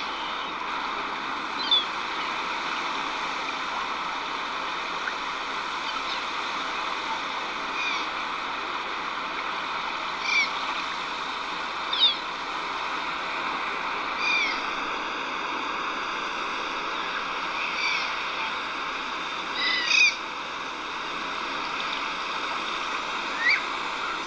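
Soundtrack of the AnTuTu benchmark's 3D coastline scene: a steady rushing ambience of surf and wind with short bird calls about every two seconds, a few louder than the rest.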